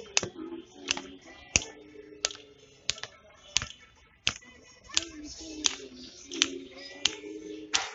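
Hand clapping keeping a steady beat for a dance, about three claps every two seconds, with a voice singing along.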